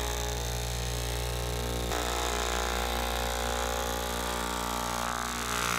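Electric straight-knife cloth cutting machine running steadily as its blade is pushed through a paper pattern and stacked fabric. It makes an even motor hum that grows brighter about two seconds in.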